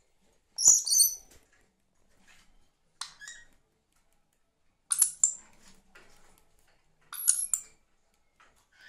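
Dusky lory giving four short, shrill squawks a couple of seconds apart, each in two quick parts, while playing.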